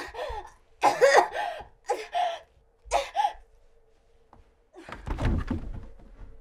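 A young woman's strained, choking gasps and groans, four or five short ones in a row, as a cord tightens around her neck. About five seconds in comes a heavy low thud with a rumbling tail.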